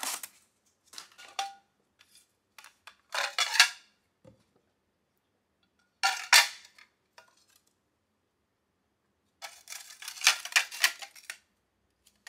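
Corelle Winter Frost White glass plates clinking and scraping against one another as they are lifted from the stack, along with cardboard packing being handled. The sound comes in several short bursts, the loudest a little after 3 seconds and again about 6 seconds in, and ends in a longer run of rapid clinks near the end.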